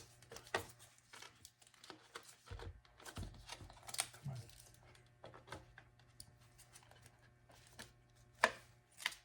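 Scattered light clicks, taps and rustles of armor pieces being handled and fitted around a boot, with two sharper clicks near the end over a faint steady hum.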